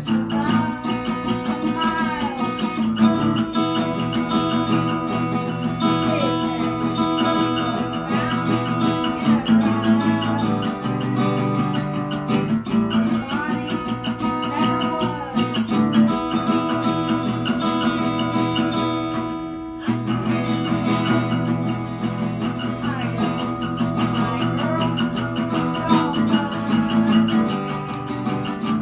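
Acoustic guitar strummed in steady chords, with a voice singing over it; the strumming drops back briefly a little past two-thirds through.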